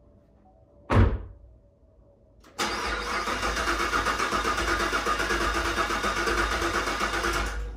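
A sharp thump about a second in, then the starter cranks the 2019 Camaro SS's supercharged 6.2-litre V8 steadily for about five seconds and stops without the engine catching. The fuel pump is not coming on, so no fuel reaches the engine.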